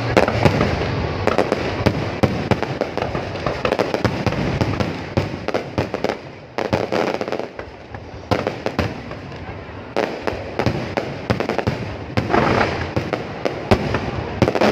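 Fireworks display going off in a dense run of bangs and crackles, which thins out briefly about halfway through.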